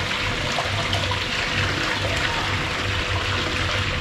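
Small waterfall pouring into a koi pond: a steady, unbroken splashing of water.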